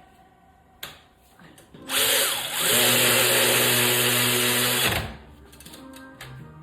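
Cordless drill-type power tool running steadily for about three seconds, with a short dip shortly after it starts, driving in the brake caliper mounting bracket bolts. A single sharp click comes about a second in.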